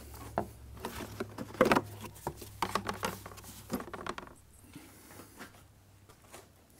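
Plastic engine cover being pulled off a Mercedes S500's V8: a run of clicks, knocks and plastic rattles as it pops free of its mounts, loudest about a second and a half in, dying away after about four seconds.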